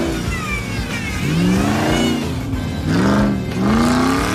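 Off-road buggy's engine revving hard as it drives through mud: the pitch climbs about a second in, drops, then climbs and falls three more times in quick succession from about halfway through.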